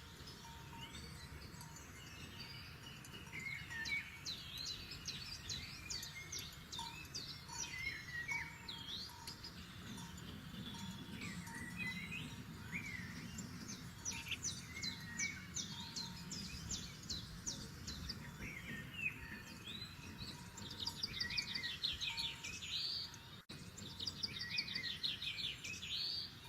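Several forest songbirds singing and calling at once: overlapping high whistles, chirps and rapid trills, with the trills densest near the end, over a low steady rumble.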